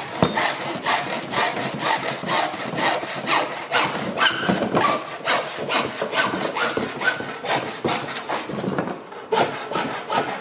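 Hacksaw cutting through PVC drain pipe by hand: steady back-and-forth strokes, several a second, with a short pause near the end before the last few strokes.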